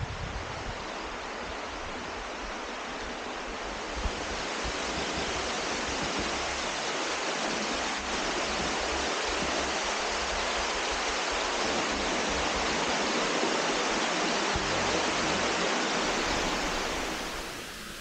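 Rushing water of a mountain stream, a steady even hiss that slowly grows louder and eases off just before the end.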